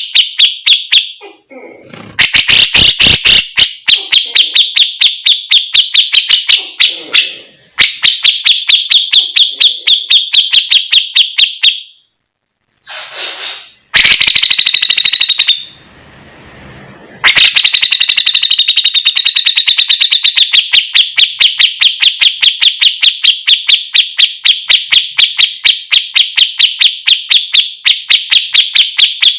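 Cucak jenggot (grey-cheeked bulbul) calling in long, rapid runs of evenly repeated high notes, about six a second, broken by a few short pauses. There are harsher, fuller bursts about two seconds in and again near the middle.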